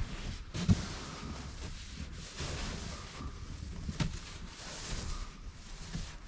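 Wind rumbling on the microphone outdoors in falling snow, with a few soft thumps, one near the start and one about four seconds in.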